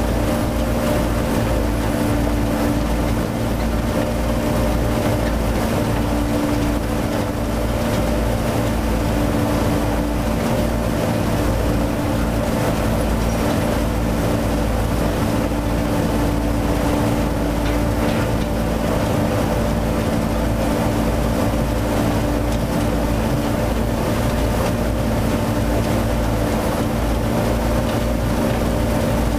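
Steady machine hum at a constant pitch over a low rumble, unchanging throughout.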